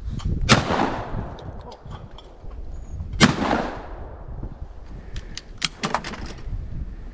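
Two shotgun shots at a thrown clay target, about three seconds apart, each trailing off in an echo. A few sharp clicks follow near the end.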